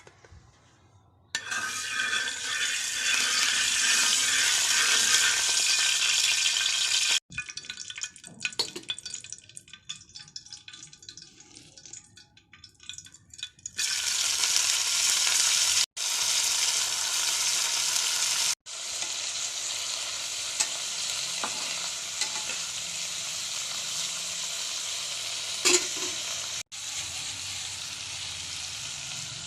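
Prawns frying in hot oil in a pan, sizzling steadily. The sizzle starts suddenly just over a second in, drops to a thinner, scattered crackle for several seconds, then comes back full. It breaks off abruptly a few times.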